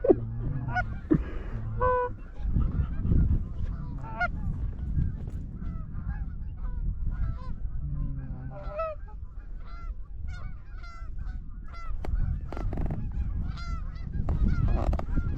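A flock of Canada geese honking: many short, overlapping honks and clucks from several birds at once, keeping up all the way through.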